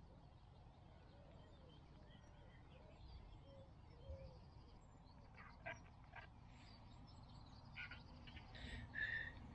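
Quiet outdoor ambience with a low rumble and faint, scattered bird calls. A few short, brighter sounds come near the end.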